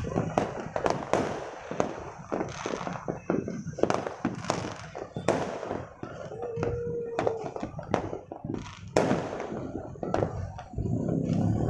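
Fireworks and firecrackers going off all over a city at once: a dense, irregular stream of bangs and crackles that overlap without pause. A short steady tone sounds briefly about six seconds in.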